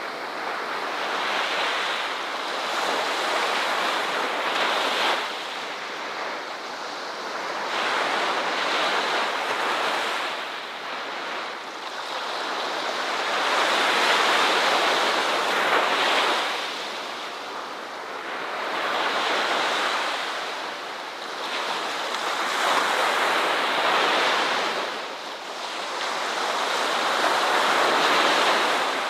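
Ocean surf: waves breaking and washing up the shore, the rush of water swelling and fading again about every four to five seconds.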